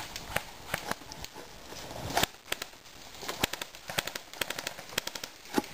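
Airsoft guns firing a series of sharp single shots, a few a second, irregularly spaced and coming more thickly in the second half.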